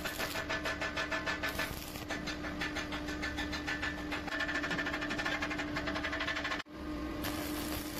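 Machinery running with a steady hum and a rapid, even ticking, about eight ticks a second. It cuts out for an instant near the end, then carries on.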